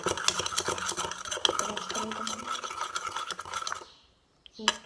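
Spoon stirring and scraping through a thick glue mixture for slime in a pot, a fast run of small clicks and scrapes that stops about a second before the end. The glue is being mixed with baking soda before the activator goes in.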